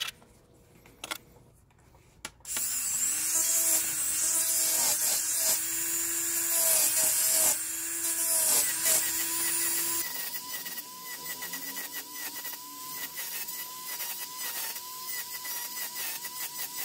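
Rotary tool with a sanding band grinding a small silver knife fitting: a high motor whine that keeps dipping in pitch as the band bears on the metal, over a hiss of abrasion. It starts about two and a half seconds in, after a few light taps.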